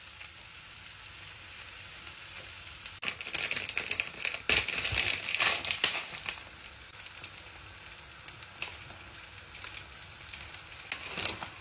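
Kimchi fried rice sizzling steadily in a frying pan. From about three seconds in, a plastic bag of shredded cheese rustles loudly for a few seconds.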